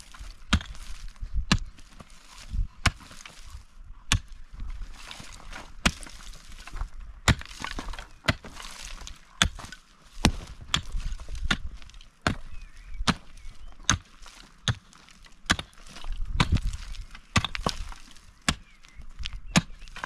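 Pickaxe striking stony, gravelly ground over and over, sharp knocks at an uneven pace of about one a second, with gritty scraping of loosened earth and stones between strikes.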